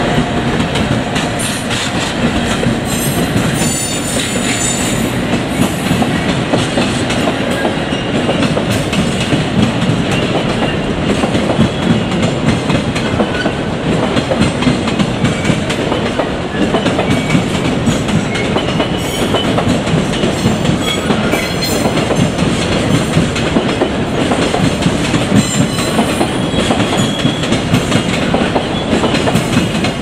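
A JR Freight container train hauled by an ED76 electric locomotive rolling past at a steady pace: a continuous rumble of the wagons with repeated clacks from the wheels on the rails.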